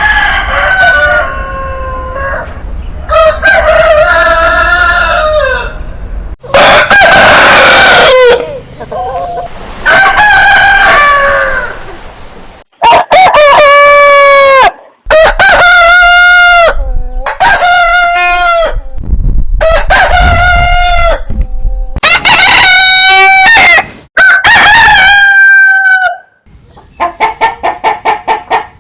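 Roosters crowing cock-a-doodle-doo, about ten loud crows one after another, with abrupt changes between different recordings. Near the end comes a fast run of short, repeated calls.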